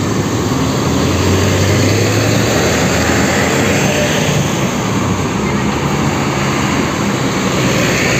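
Diesel engines of large coach buses running as they drive past one after another in a departing convoy. The sound is loud and steady, and it swells as a bus goes by close, around the middle and again near the end.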